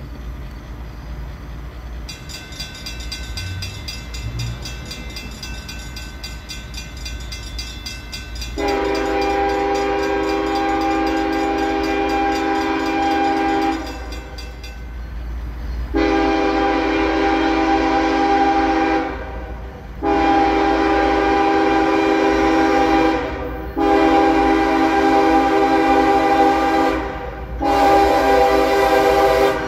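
Diesel locomotive air horn sounding a chord of several notes in five blasts for a grade crossing, over the low rumble of the approaching train. The first blast comes about nine seconds in and lasts about five seconds; four shorter blasts of about three seconds each follow, the last still sounding at the end.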